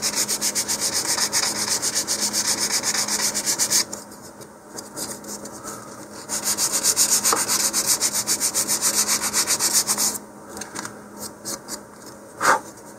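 Leading edge of a balsa fin being sanded with 150-grit sandpaper on a sanding block, rounding it off: rapid back-and-forth strokes, about six a second, in two runs with a pause between. A few light scrapes follow, then a single sharp tap near the end, the loudest moment.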